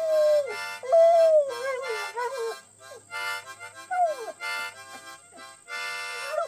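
A dog howling along with a harmonica. A long howl falling in pitch ends about half a second in, a wavering howl follows, and a short falling cry comes about four seconds in. Between and under the howls the harmonica plays held chords.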